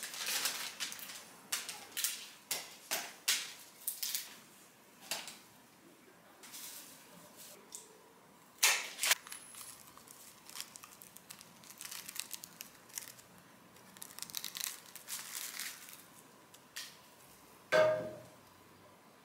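Kraft wrapping paper and flower stems rustling and crinkling as cut flowers are handled and sorted, with scattered light clicks and taps. A louder rustle comes about nine seconds in and a louder knock near the end.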